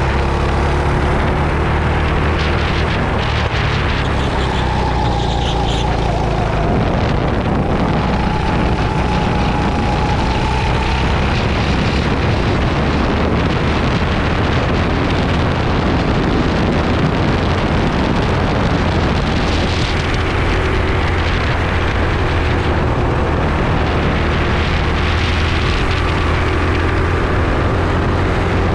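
Racing kart engine running hard at race pace, heard onboard with heavy wind noise on the microphone; a continuous loud drone whose pitch shifts slightly as the kart goes through the corners.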